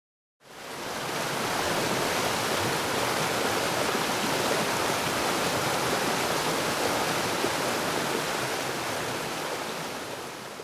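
Rushing water of a stream or river, a steady even rush that fades in about half a second in and fades down near the end.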